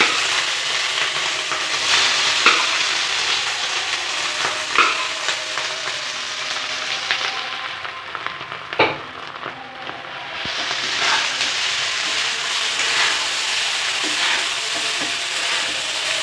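Cooked rice with peas and carrots sizzling in hot ghee in a nonstick kadai while a steel spatula stirs and tosses it, with a few sharp knocks of the spatula against the pan, the loudest about nine seconds in. The sizzle thins for a couple of seconds past the middle, then picks up again.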